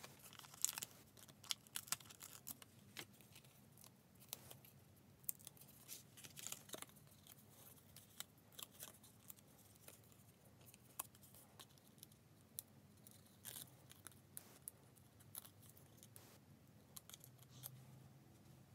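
Mostly near silence, broken by faint, irregular small clicks and crinkles: Stampin' Dimensionals foam adhesive pieces being peeled from their backing sheet and pressed onto cardstock.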